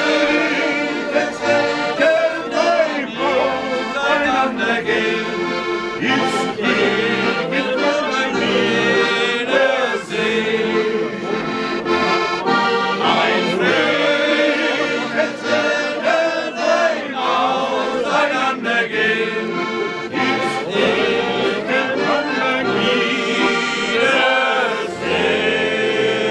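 Accordion playing a traditional folk tune with a rhythmic bass accompaniment, with a group of people singing along.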